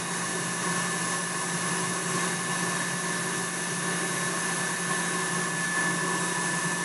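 Stand mixer running at a steady speed, whisking egg whites to a foam for Italian meringue: a constant motor whine with no change in pitch.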